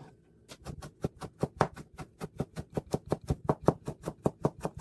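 Knife slicing bellflower (doraji) root thinly on a cutting board: quick, even chopping strokes about five a second, starting about half a second in.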